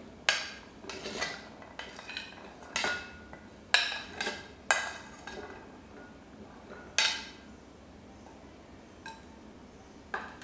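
A metal spoon scraping and clinking against a plate while chopped fruit is pushed off it and drops into a glass bowl. The sharp clinks and scrapes come irregularly, about eight of them, and thin out after about seven seconds.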